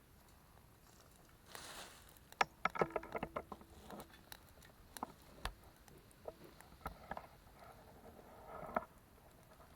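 Small metal wood-burning camp stove being handled and loaded with sticks: a run of light wooden knocks and clatter, one with a short metallic ring, then scattered knocks and rustles.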